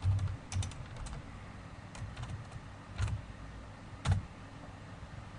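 Typing on a computer keyboard: irregular key clicks, a quick cluster in the first second, then scattered single keystrokes, the loudest about four seconds in, with fewer toward the end.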